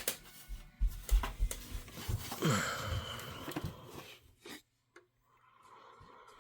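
Scattered knocks and rustling from handling, with a falling sweep about two and a half seconds in, then a faint steady low hum near the end.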